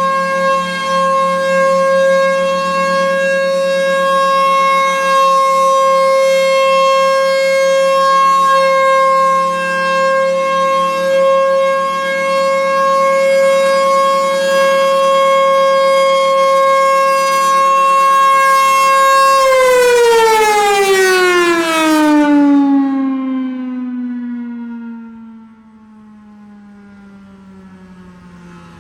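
Federal Signal Thunderbolt 1000A outdoor warning siren sounding its steady alert tone, loud and holding one pitch. About two-thirds of the way in it cuts off and winds down, its pitch sliding steadily lower as the sound fades.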